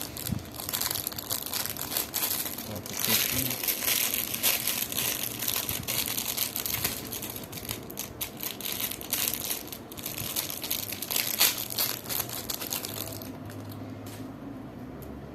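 Plastic wrapping crinkling and rustling as it is handled, with many small clicks and crackles. Near the end it dies down to a low steady hum.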